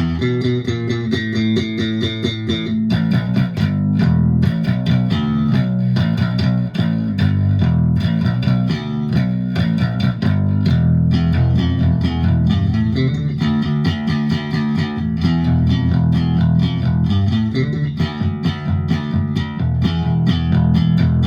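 G&L SB-2 Tribute electric bass played with a pick through a Fender Rumble 25 bass amp: a continuous run of quickly picked notes with a sharp attack on each.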